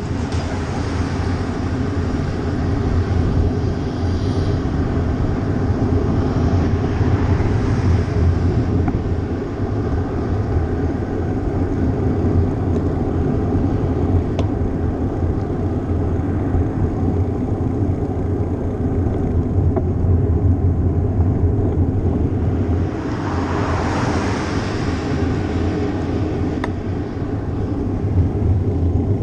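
Steady wind rush and road noise on a bicycle-mounted GoPro's microphone while riding, with two louder swells of passing vehicles, around eight seconds in and again near the end.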